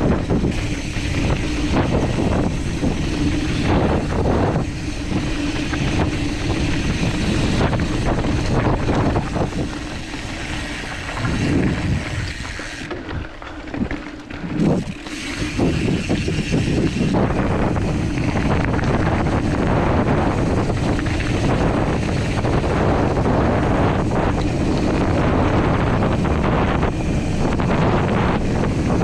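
Wind buffeting the microphone of a handlebar-view camera on a mountain bike rolling along a dirt singletrack, mixed with tyre noise on the dirt and short knocks from the bike over bumps. It eases for a few seconds about halfway, then picks up again.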